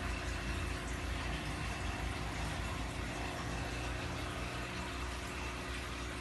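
Aquarium pump running with a steady low hum under a constant wash of moving, bubbling water.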